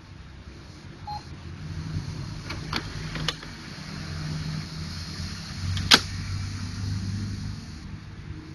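Brother MFC-J615W inkjet printer's internal motors whirring with a shifting low hum and hiss, broken by a few clicks and one sharp click about six seconds in.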